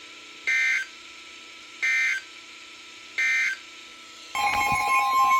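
Three short bursts of Emergency Alert System (SAME) data tones, a warbling two-tone screech about a second and a half apart: the end-of-message code that closes a NOAA Weather Radio alert. Near the end a loud steady alert tone starts, with other broken tones beneath it.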